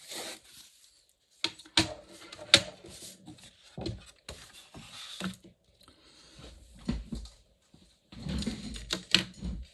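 Handling noise: irregular clicks and light knocks of wooden coloured pencils against their metal tin, with paper rustling and sliding across a desk as a pencil is picked out.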